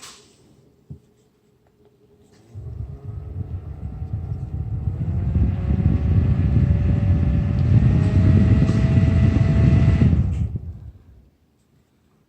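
Cordless mini handheld fan running: its small motor and blades whir up, rising in pitch and getting louder over several seconds, with a low rumble of air on the microphone, then it cuts off about ten seconds in and winds down.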